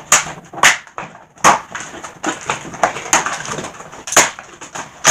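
Irregular sharp clicks and knocks of hard plastic toy pieces being handled and knocked together, about five louder knocks among smaller taps.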